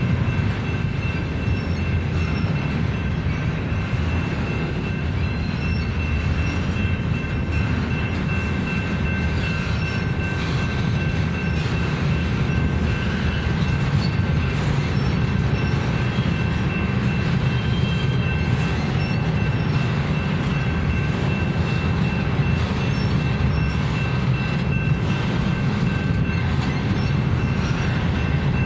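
Double-stack intermodal container cars rolling steadily past on the rails, a continuous rumble of wheels and cars with a steady high-pitched whine over it.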